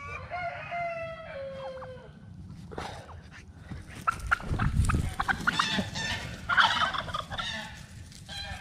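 Domestic turkeys gobbling and calling, stirred up by a puppy. There is a run of calls at the start and a louder, harsh burst of gobbling about six seconds in, with rustling and thumps in between.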